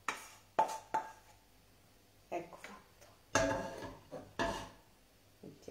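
A utensil knocking and scraping against a frying pan as rice is scraped out onto a plate: three quick clinks in the first second, one with a short metallic ring, then several longer scrapes, the loudest a little past the middle.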